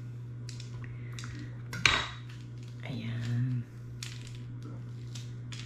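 Metal utensil clinking and scraping against a cooking pan during sautéing: several separate clinks, with one sharp knock about two seconds in, over a steady low hum.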